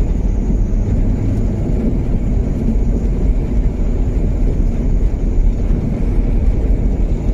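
Land Rover Discovery driving at a steady speed on a wet road, heard from inside the cabin: an even, mostly low engine and tyre noise.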